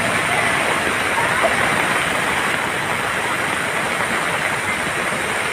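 Loud, steady rush of fast-flowing floodwater, an even roar with no breaks.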